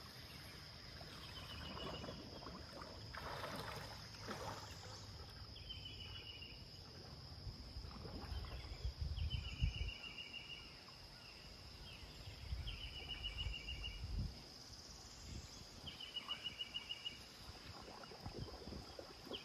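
Faint natural ambience: a steady high insect drone, with a short rapid trilled call repeated every two to three seconds. Low rumbles come and go, strongest around the middle.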